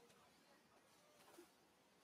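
Near silence: faint outdoor background hiss, with one faint short squeak a little past halfway.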